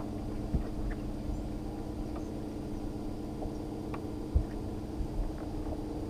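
Electric trolling motor on a bass boat running with a steady low hum, with a few dull knocks on the boat deck, the clearest near the start and about four seconds in.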